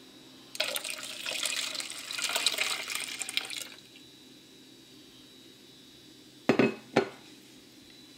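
Milk poured from a bowl into beaten eggs in a plastic mixing bowl, the stream splashing for about three seconds. Near the end come two short knocks.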